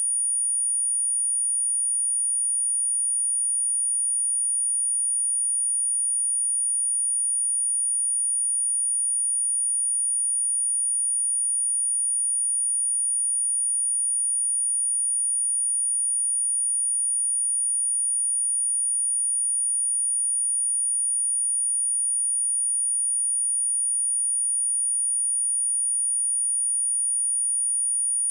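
A steady, unbroken pure sine-wave test tone at 9512 Hz, a single high-pitched whistle-like tone held at constant level.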